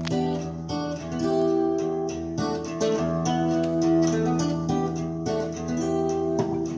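Instrumental guitar passage of a recorded song, plucked and strummed guitar over sustained notes, played back through a small 13JZ8 valve amplifier into a 1959 Phonola 10.2-inch radio speaker and heard in the room.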